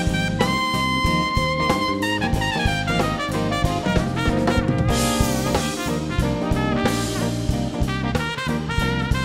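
Live band with trumpet, saxophone, electric guitar, keys, bass and drum kit playing a jazz-funk arrangement. A horn, most likely the trumpet, holds one long note from about half a second in, then plays moving phrases over the steady drums.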